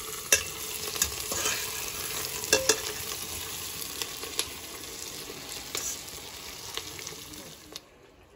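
Meat frying and sizzling in a stainless steel pressure cooker pot as a metal spoon stirs it, with scattered clinks and scrapes of the spoon against the pot. The sizzle drops away suddenly near the end.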